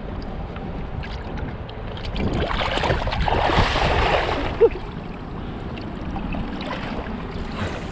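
Wind rumbling on the microphone over river water, with a swell of splashing in the middle as a hooked carp is grabbed at the water's edge.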